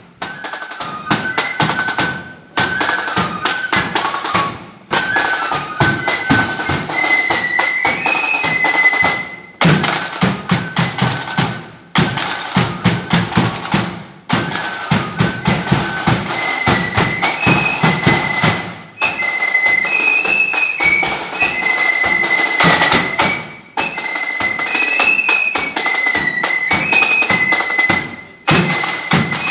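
Marching flute band playing: massed flutes carry the tune over the beat of side drums and a bass drum, the sound dipping out briefly several times.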